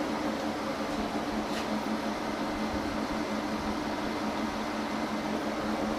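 Monarch 16CY engine lathe running with the spindle turning and the carriage under power feed from the leadscrew: a steady gear-driven hum with an even mechanical whir.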